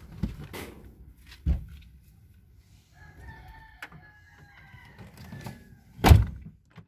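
A rooster crowing once, one long call sinking slightly in pitch, in the middle of the stretch. A few knocks come in the first second and a half, and a loud thump comes near the end.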